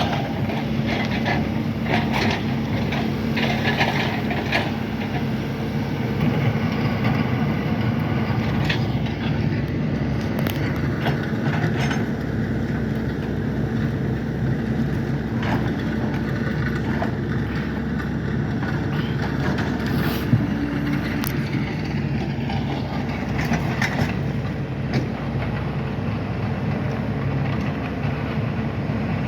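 A large engine running steadily, with scattered knocks and clanks over it.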